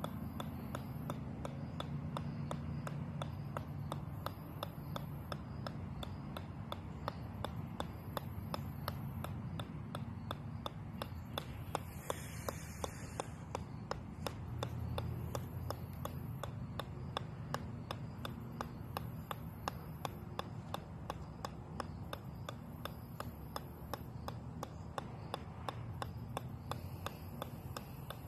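Golf ball bouncing on the steel head of a 4-pound sledgehammer, a sharp click about three times a second in a steady, unbroken rhythm.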